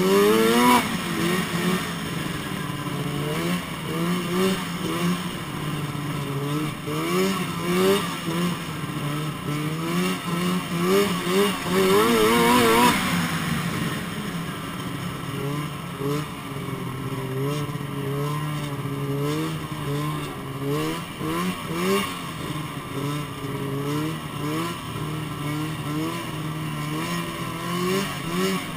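Snowmobile engine running under throttle, its pitch rising and falling as the rider speeds up and eases off, with a louder, higher surge about twelve seconds in.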